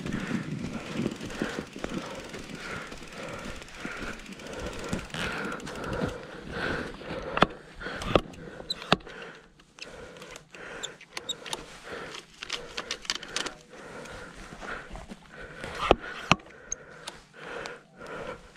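Mountain bike ridden through snow: a steady rushing noise with irregular clicks and knocks from the bike rattling over the ground, the knocks coming thicker from about a third of the way in.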